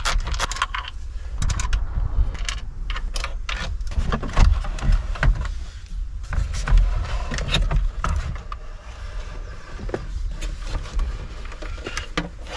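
Radio being taken out of a Smart Fortwo 451 dashboard: a Torx driver turning out the T25 screws, then the radio unit being worked loose and slid out of the plastic dash surround. Irregular clicks, knocks and scrapes of metal and plastic.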